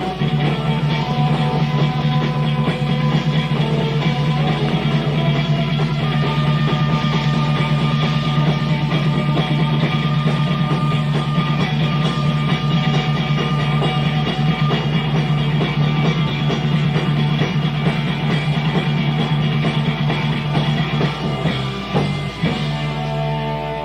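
Live rock band playing an instrumental passage: distorted electric guitar over bass and drums in a lo-fi bootleg recording, with a long sustained low note throughout, the playing thinning out near the end.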